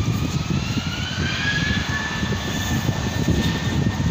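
Airbus A320's two jet engines spooling up on the runway for takeoff: a whine that rises in pitch over the first two seconds and then holds steady, over a broad rumble.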